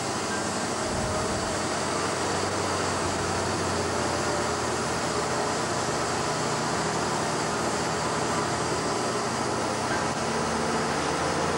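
Loaded logging truck driving on a gravel road: steady engine drone under road and wind noise, heard from the cab window.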